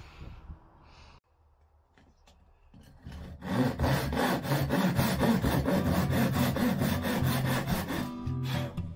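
Hand saw cutting through a bamboo board in quick back-and-forth strokes, starting about three seconds in and going on steadily.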